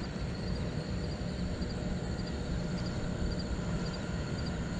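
Steady wind rumbling on the camera microphone, an even low-pitched noise with no distinct events.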